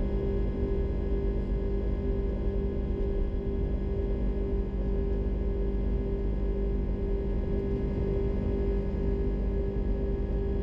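Airbus A330-300 cabin noise: the jet engines' steady drone, a deep rumble with several fixed humming tones on top, heard from inside the cabin.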